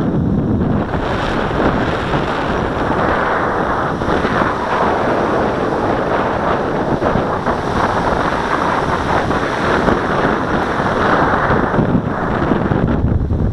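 Strong sea wind buffeting the microphone: a loud, continuous rush that swells and eases with the gusts.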